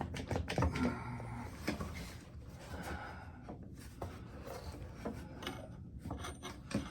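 Clamps and a straight edge being handled against a glued wooden table leg: rubbing and a few light knocks, with sharp clicks about half a second in.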